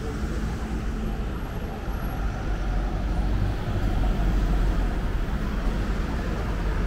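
City street traffic: vehicles driving past in a steady low rumble that grows a little louder a few seconds in.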